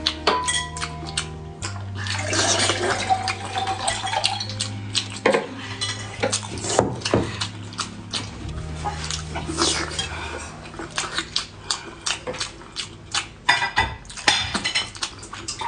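Spicy stir-fried noodles being slurped and chewed, with many short wet slurps and smacks, over background music with held bass notes.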